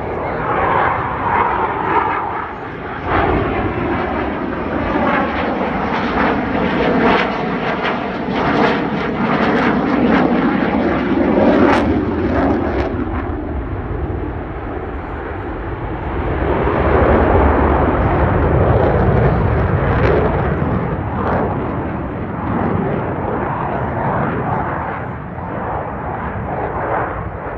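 Dassault Rafale's twin Safran M88 turbofan engines roaring through a low display pass, the jet noise swelling and fading as it manoeuvres. A rising-and-falling whooshing sweep runs through it, with a crackle at the loudest points.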